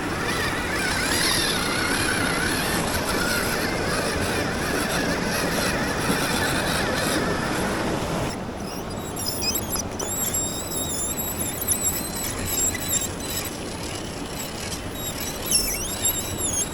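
Small radio-controlled jeep's electric motor and gears whining as it runs, with a rough rushing noise for about the first half. About halfway through the sound thins to a high-pitched whine that wavers and dips in pitch as the speed changes.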